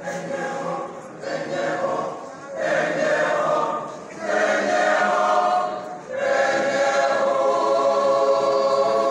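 Mixed church choir of men and women singing a hymn in harmony, in short phrases with brief breaks between them, the last phrase held as a long, loud chord.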